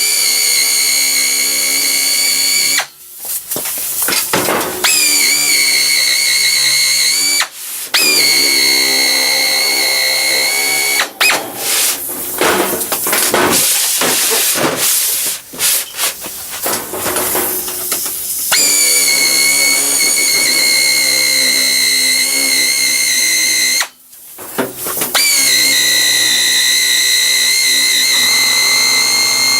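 Electric sheet-metal shear cutting 18-gauge steel sheet: a steady high motor whine that cuts out and starts again several times, turning choppy and rougher for several seconds in the middle.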